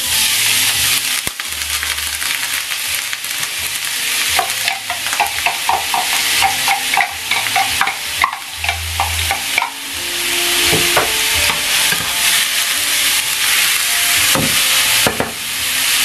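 Freshly added chopped onion sizzling in hot oil in a large non-stick frying pan: a loud, steady hiss with quick crackling pops, thickest a few seconds in. This is the start of sautéing the onion for a sofrito.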